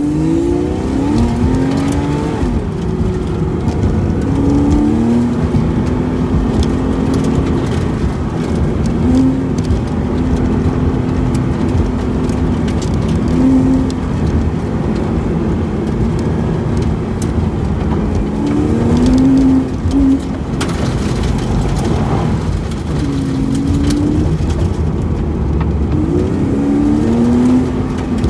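2009 Porsche Cayman's flat-six engine heard from inside the cabin, driven hard from a standing start: its pitch climbs and falls again and again as the car accelerates and lifts between corners. A steady rush of noise runs underneath.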